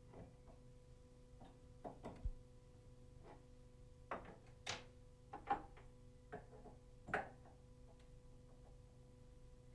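Tap parts and hand tools being handled as a tap is reassembled: a scattering of light metallic clicks and knocks, a few sharper ones in the middle, over a faint steady hum.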